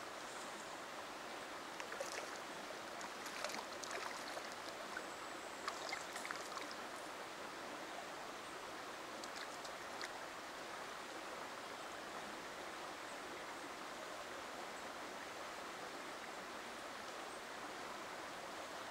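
River water running steadily, with a scatter of light splashes over the first ten seconds or so from a small hooked brown trout being played to the bank and lifted by hand.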